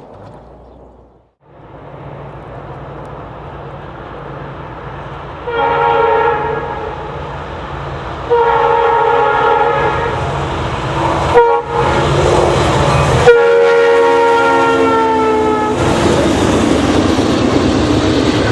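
Approaching diesel freight locomotive sounding its horn, a chord of several notes, in the grade-crossing pattern: two long blasts, one short and a final long one. After the horn the train passes loudly, with engine and wheel noise.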